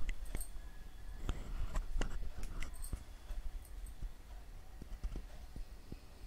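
Dried red chilli halves dropped into a kadhai of warm oil with spices: a scattering of faint clicks and light taps, thinning out after about three seconds.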